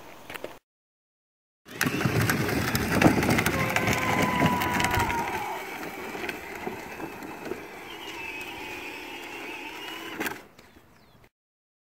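Child's ride-on toy car rolling over a dirt yard: its wheels crunch and rattle on the ground, with a thin whine running underneath. Loudest early on, it eases after a few seconds and cuts off abruptly about ten seconds in.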